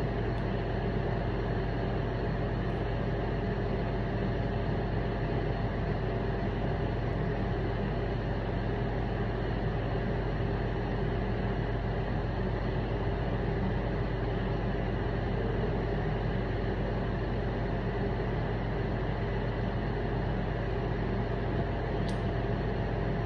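Steady mechanical hum with an even hiss and a few faint steady tones, unchanging throughout, and one small sharp click near the end.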